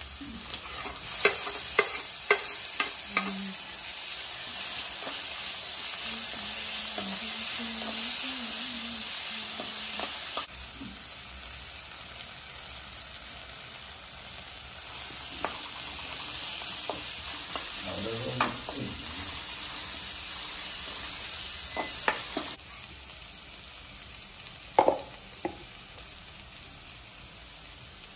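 Onions, garlic and curry leaves sizzling in hot oil in a kadai, with a metal spoon scraping and clinking against the pan as they are stirred. The sizzle is loudest for the first ten seconds or so, then settles lower.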